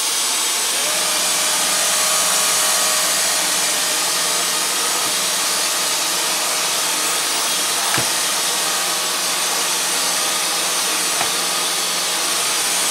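Dyson DC35 Digital Slim cordless stick vacuum running steadily on regular (non-max) power, its motorised floor head working across carpet: a steady rush of air with a faint high whine and a low hum, and one light click about eight seconds in.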